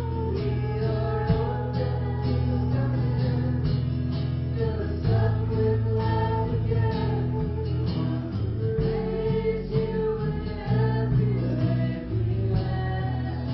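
Christian song: singing over a guitar accompaniment.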